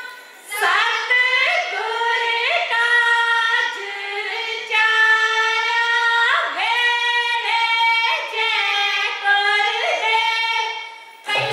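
Women singing a Punjabi Giddha folk song unaccompanied through a stage microphone, with long held notes and sliding pitch. Drums and music come in right at the end.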